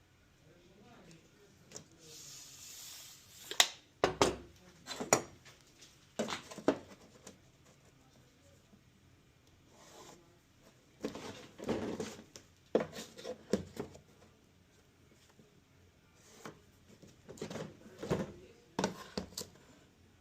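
Handling noises: irregular sharp clicks, knocks and rubbing in several short clusters, with a brief soft hiss about two seconds in.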